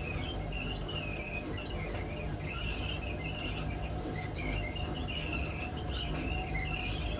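Hotpoint WMA32 washing machine drum spinning over a low motor rumble, with repeated high squeaks throughout: the drum rubbing on the bearing seal, a sign that the drum bearings are worn out.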